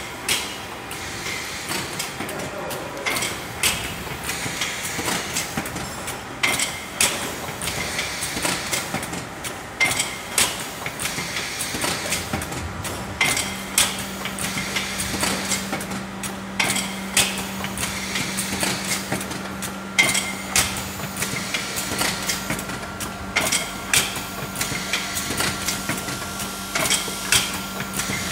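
Cutting-film coffee capsule filling and sealing machine running, its working cycle giving a knock and clicks about every three seconds over a steady mechanical clatter. A steady low hum sets in about halfway through.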